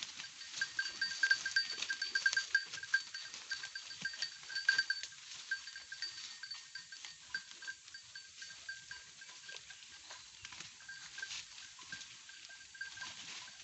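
A herd of goats browsing in forest undergrowth: many quick crisp rustles and crunching clicks, busiest in the first five seconds, over a steady pulsing high-pitched tone.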